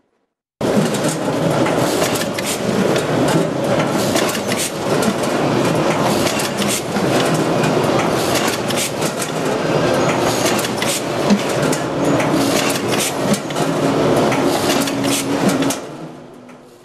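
C-Pack VAC 929 onion bagging machine running. It makes a dense mechanical clatter full of rapid sharp clicks and knocks from its sealing and clipping mechanism. The sound starts suddenly and fades out near the end.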